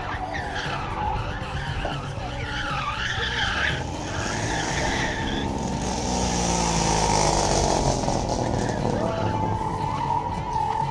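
A car on an autocross course with its tyres squealing in wavering bursts for the first half, then its engine revving hard, loudest around the middle.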